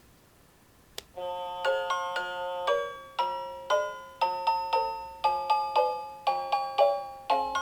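Seiko NR435P quartz alarm clock's melody alarm: after a click about a second in, a tune of electronic notes starts. The notes are played in a quick, even rhythm, each one struck and fading, several pitches at a time.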